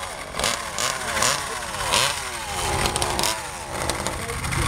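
Small model engine of an RC mini pulling tractor revving in short blips, its pitch rising and falling about six times, with some crackling.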